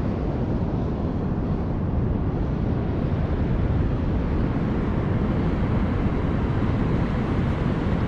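Steady low rumble of wind buffeting the microphone on an open beach.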